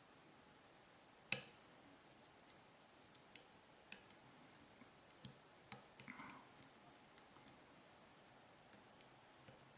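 Faint, irregular metallic clicks of a lock pick and tension tool working the pin stacks of a Zeiss Ikon round rim-cylinder lock during single-pin picking. The sharpest click comes about a second in, with a few lighter ticks and a short cluster near the middle.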